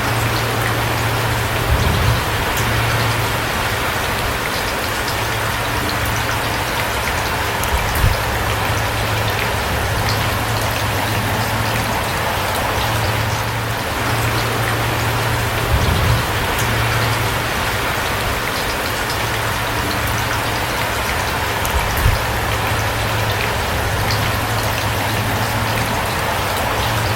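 Steady rain falling, an even hiss of drops with a constant low rumble beneath it. Four brief, louder low thuds stand out, spread through it.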